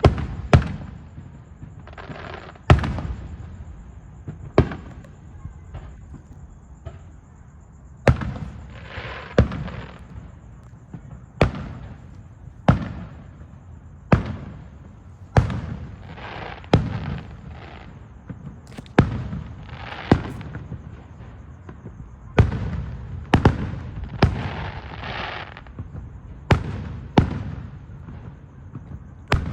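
Aerial fireworks going off: a run of sharp booming bursts every second or two, each followed by a fading crackle, with a low rumble underneath.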